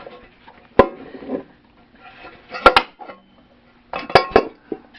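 Hard metallic clicks and clunks from handling a Bell & Howell 8mm film projector while tilting it up: a single knock, then a pair, then a quick run of three near the end.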